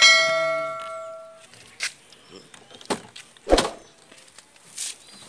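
A bright ding with ringing overtones that fades out over about a second and a half: the notification-bell sound effect of a subscribe-button animation. After it come a few scattered short knocks, the loudest about three and a half seconds in.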